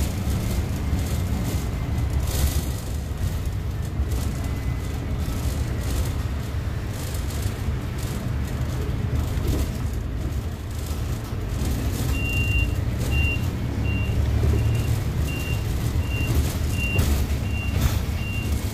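Bus engine and road noise rumbling steadily, heard from inside the bus near the driver's seat. From about two-thirds of the way in, a high single-tone beep repeats about one and a half times a second as the bus comes up to an intersection to turn: its turn-signal warning beeper.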